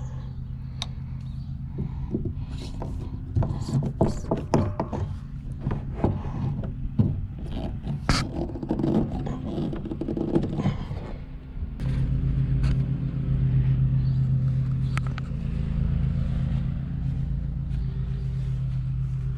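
Knocks, scrapes and clatter from a length of 3/4-inch PVC pipe being handled and fitted into PVC tee fittings, busiest from about 2 to 11 seconds in. A steady low machine hum runs underneath and grows louder near 12 seconds.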